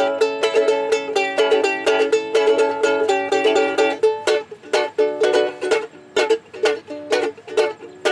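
Theme music played on a strummed string instrument: quick, even strums over bright chords, which change about four seconds in.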